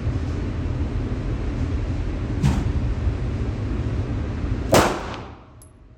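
Two gunshots at a shooting range: a sharp crack about two and a half seconds in and a louder one near the end, over a steady rushing noise that falls away just after the second shot.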